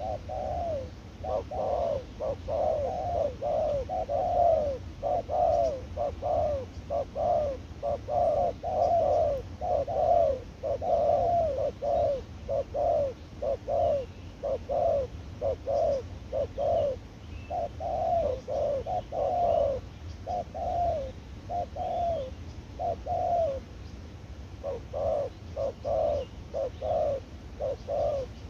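Spotted doves cooing: runs of short, low coos, a few per second, with a brief pause about two-thirds of the way through.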